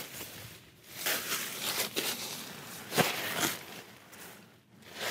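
Crinkling rustle of a waterproof groundsheet being dragged under a tarp shelter and sat on, in several uneven strokes, the sharpest about three seconds in.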